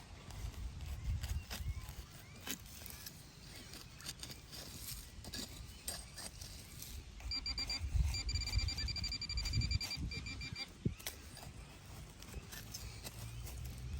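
Digging in soil: scattered scrapes and knocks. About halfway through, a metal detector gives a fast run of short, high-pitched beeps lasting about three seconds as it is held over a metal target in the hole.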